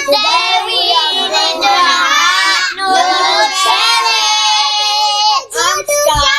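A child singing a melody, with some long held notes.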